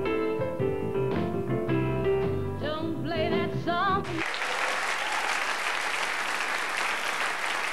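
A woman singing with a wavering vibrato over her own grand-piano chords, stopping about four seconds in. A studio audience then applauds.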